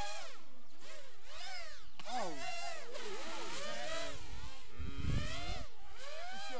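FPV racing miniquad's electric motors and propellers whining, the pitch swooping up and down again and again as the throttle changes in freestyle flight. A low rumble joins underneath from about four seconds in.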